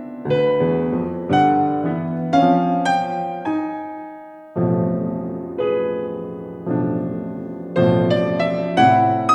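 Piano music: chords and single notes struck and left to ring, with a short break about four and a half seconds in.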